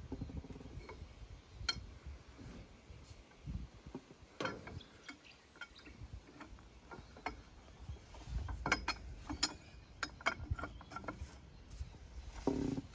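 Socket wrench on the crankshaft pulley bolt of a Detroit Diesel 8V-71 two-stroke V8, clicking and clinking as the crankshaft is worked round by hand. The clicks are scattered, busiest about two-thirds of the way through.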